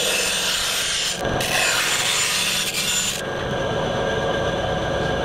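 Bandsaw blade cutting through thin aluminum bulkhead sheet, a harsh high hiss for about three seconds with a brief break about a second in. After that the saw keeps running with no cut.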